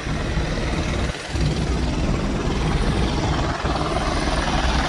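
Helicopter running on the ship's deck with its rotor turning: a steady low rumble heard from a distance.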